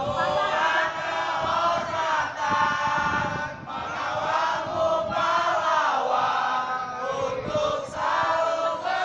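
Football supporters chanting a song together in unison, many mostly male voices singing in repeated phrases about a second long.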